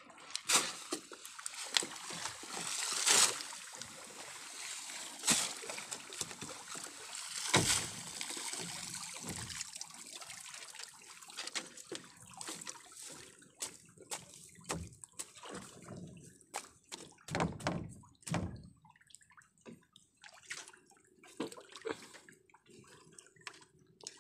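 Water splashing and dripping as a wet fishing net is hauled out of the sea over the side of a wooden outrigger boat, with irregular splashes. The splashing is busiest in the first half and thins out after about halfway.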